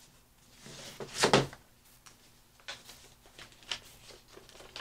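A paper envelope being handled and opened: a scraping rustle of paper about a second in, then a run of small crinkles and clicks as the card inside is pulled out and unfolded.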